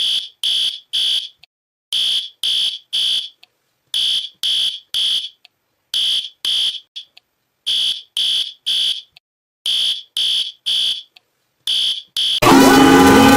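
Emergency alert alarm: a high-pitched electronic beep sounding in sets of three, like a smoke alarm's evacuation signal, each set about two seconds apart. Near the end a far louder, harsh blaring alarm with several tones at once cuts in.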